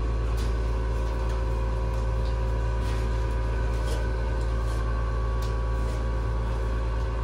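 A steady mechanical hum with a strong low drone and several constant tones above it, broken only by a few faint clicks.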